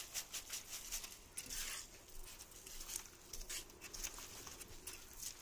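Faint, irregular scraping and light rattling of galvanised wire chicken mesh being hooked and pulled up through wet concrete.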